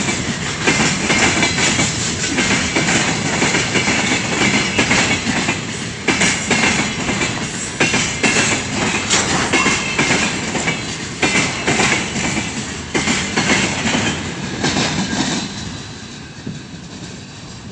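Loaded container train's freight wagons rolling past at speed, wheels clattering rhythmically over the rail joints. The sound fades over the last two seconds as the end of the train moves away.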